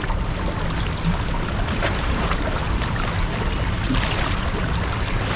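Sea water washing and splashing steadily against the shore, a continuous rushing noise.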